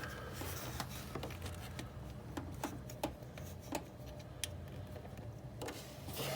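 Scattered light metallic clicks and ticks as the bottom thermostat-housing bolt is started into its thread, over a steady low hum.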